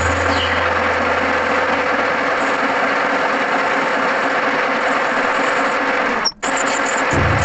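Metal lathe running with a steady motor hum and machining noise, single-point cutting an M12 × 1.5 thread. The sound drops out briefly about six seconds in, then resumes the same.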